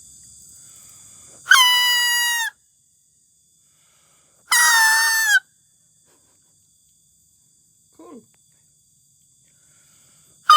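Homemade grass whistle (sempritan) blown twice, each a loud, reedy, steady-pitched honk about a second long.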